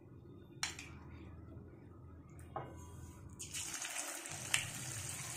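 Marinated chicken 65 pieces going into hot oil in a kadhai: after a couple of light clicks, the oil breaks into a steady sizzle about three and a half seconds in as deep-frying begins.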